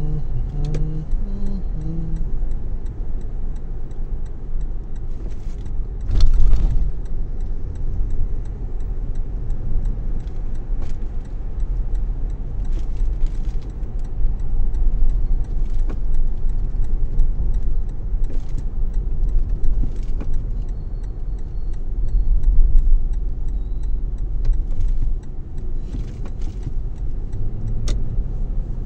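Car engine and tyre noise heard from inside the cabin while driving: a steady low rumble with hiss, swelling louder about six seconds in and again near the end, with small clicks and rattles scattered through it.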